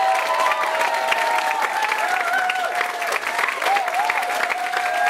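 Audience applauding steadily, with voices calling out over the clapping.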